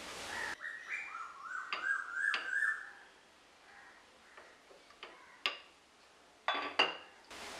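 A small bird chirping in a quick string of short, rising-and-falling notes, then a few sharp clicks as a wooden rolling pin knocks against a stone countertop, the loudest cluster near the end.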